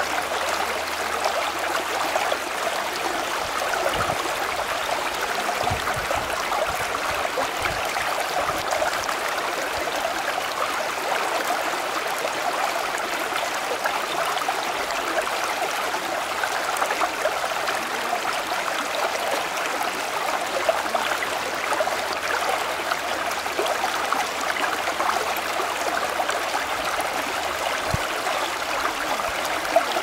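A stream of running water, flowing steadily with an even rush strongest in the middle range, and a few faint low knocks.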